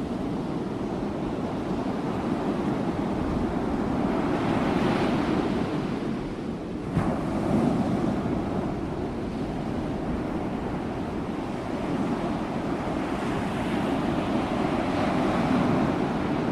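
Sea waves breaking and washing on a shore, in slow swells, with a sharper break about seven seconds in.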